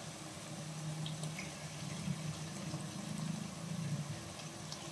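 Raw prawns sizzling in hot oil in a wok: a steady frying hiss with a few faint ticks, over a low steady hum.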